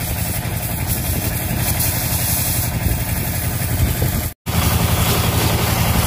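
High-pressure car-wash pump running steadily with its water jet hissing from the hose. The sound cuts out briefly about four and a half seconds in, then carries on the same.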